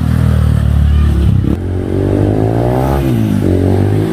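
Honda CRF150L's single-cylinder four-stroke engine running through an Akrapovic carbon full-system exhaust: a steady low note at first, then revved up and back down about halfway through, and blipped briefly near the end.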